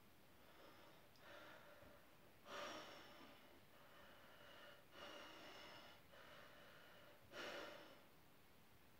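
A rooster's soft, breathy calls: about six quiet huffing sounds, roughly one a second, the loudest about a third of the way in and near the end.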